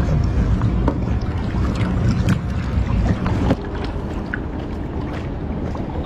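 Water sloshing in a shallow stream, with a heavy low rumble and scattered small splashes. The rumble drops off abruptly about three and a half seconds in.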